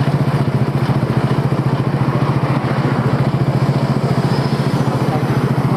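Small motorbike engine running steadily while riding, a low hum with a fast, even pulse.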